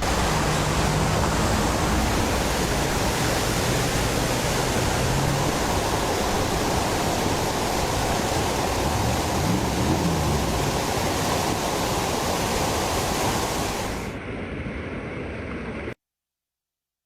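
A steady, even rushing noise, with a faint low hum underneath in the first few seconds. It drops in level about 14 seconds in and then cuts off suddenly near the end.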